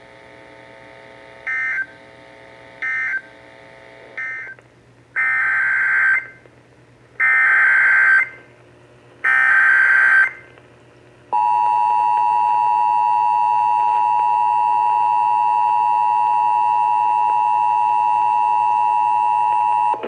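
Emergency Alert System data and tones from a radio speaker: three short digital SAME bursts closing the weather-radio message, then three longer SAME header bursts about a second each, opening the AM station's relay. About eleven seconds in, the EAS two-tone attention signal starts and holds steady.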